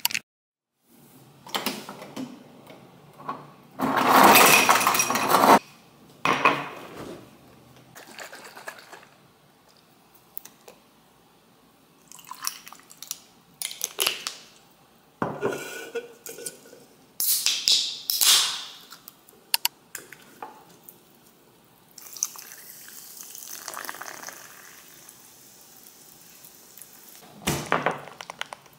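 A cold drink being made in a glass: juice and sparkling water poured over ice, with clinks and knocks of glass and cans on the counter. It comes as a string of separate sounds with short gaps, the loudest a rush of pouring a few seconds in.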